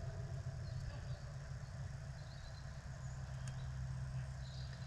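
Steady low rumble of wind buffeting the microphone outdoors, with faint distant calls and a single short click about three and a half seconds in.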